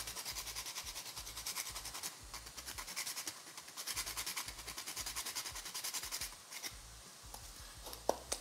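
Whole nutmeg being grated on a flat metal hand grater: fast, even rasping strokes, about six a second, that die away after about six seconds, followed by a sharp tap near the end.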